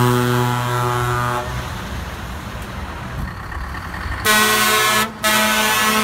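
Truck air horns sounding as a Scania truck drives past: a long blast that stops about one and a half seconds in, engine and road noise, then a second, lower-sounding horn chord starting a little after four seconds, broken off for a moment just after five seconds and then held on.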